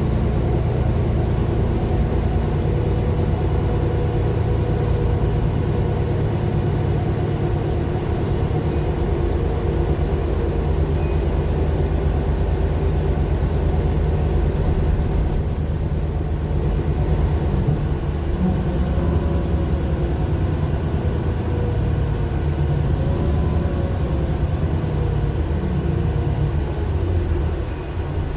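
Mercedes-Benz Citaro LE city bus with its Daimler OM 457 hLA six-cylinder diesel engine, running steadily with a continuous low drone.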